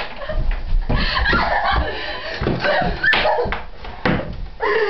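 Thuds and bumps of people scuffling and roughhousing, mixed with shouting and shrieking voices; two sharp knocks stand out about three and four seconds in.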